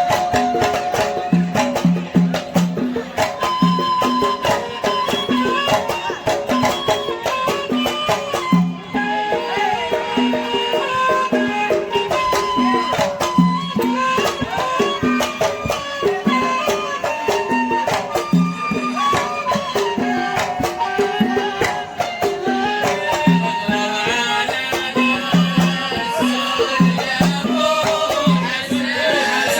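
Live Hadhrami band playing Kuwaiti-style sawt music: hand drums beat a steady rhythm under a stepping melodic line.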